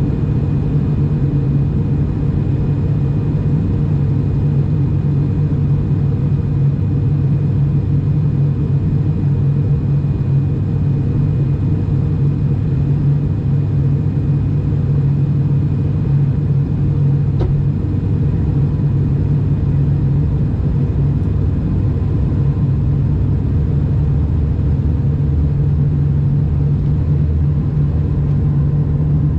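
Cabin noise of an ATR 72-600 turboprop in descent, heard at a window seat beside the propeller: a loud, steady low propeller drone with airflow hiss. A single faint click comes about 17 seconds in.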